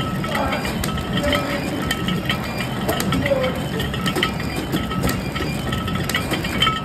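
Flow-wrap packaging machine running steadily as it wraps bars in printed film, a continuous mechanical clatter with repeated sharp clicks.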